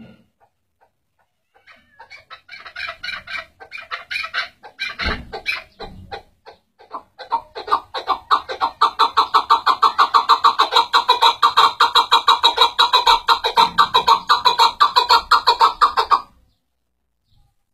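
Chukar partridge calling from its cage: soft, irregular clucking notes that build into a loud, rapid run of repeated chuk calls, about four a second, which cut off near the end.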